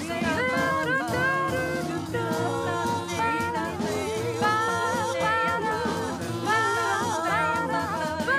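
Upbeat children's-song music with a steady beat and a bouncy melody.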